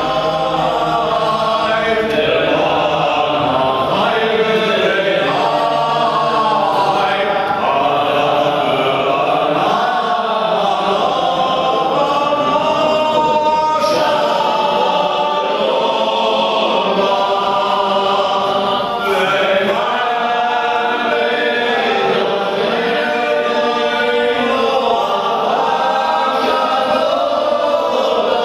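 Male voices chanting a Jewish prayer, led from the synagogue lectern, in one continuous sung line with no breaks.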